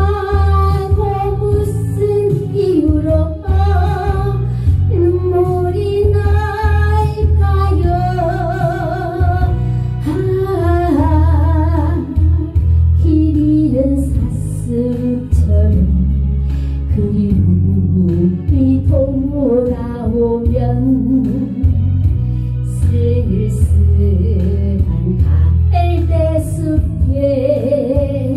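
Music: a slow song with a melody line carrying heavy vibrato over a steady bass beat.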